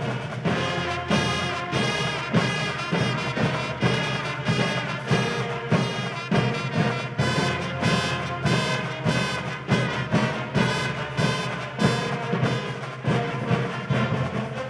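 A live brass-heavy pep band playing an upbeat tune, with brass carrying the melody over a steady drum beat.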